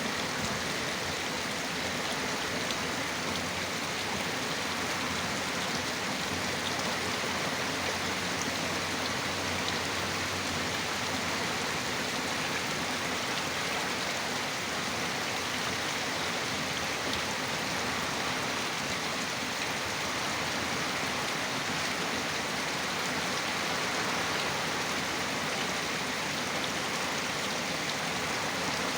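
Heavy rain falling steadily, an even, unbroken hiss of downpour.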